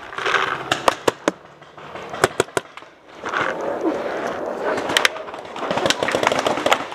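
Paintball markers firing: sharp pops in several short strings of two to four shots, over the rustle of the player moving.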